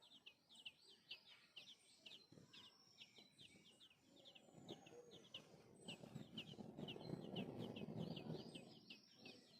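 Faint, rapid high-pitched chirping from baby birds begging to be fed, several short falling chirps a second without a break. A low rough noise swells about halfway through and fades near the end.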